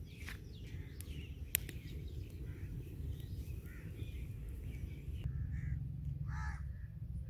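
Crows cawing, with one loud caw near the end, over a low steady rumble. A few sharp crackles from a wood fire come in the first two seconds.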